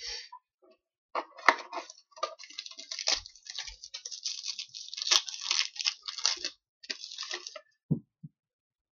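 Trading cards handled and slid against one another as a pack is sorted through: a run of dry clicks, scratches and papery rustling, ending with a couple of soft taps near the end.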